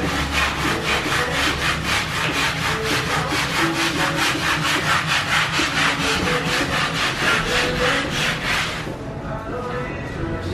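Brisk rhythmic scrubbing of a cloth over kitchen cabinet doors, several even strokes a second, stopping about nine seconds in.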